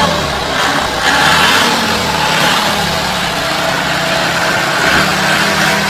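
Farm tractor engine running steadily under load as it hauls a boat trailer up a ramp out of the water, a steady low drone.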